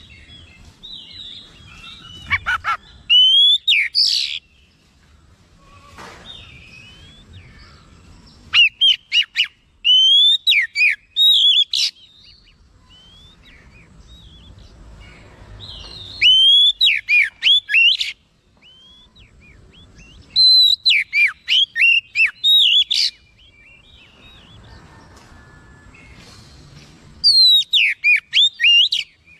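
Oriental magpie-robin singing: four bouts of loud, quick whistled phrases that sweep up and down, each a few seconds long, separated by short pauses.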